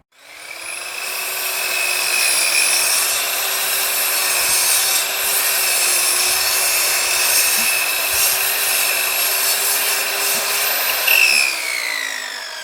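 Table saw switched on and running at a steady pitch, then switched off about eleven seconds in, its whine falling as the blade spins down.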